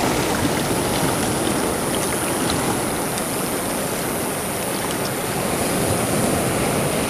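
Steady rushing wash of surf and seawater over a rocky lava shoreline.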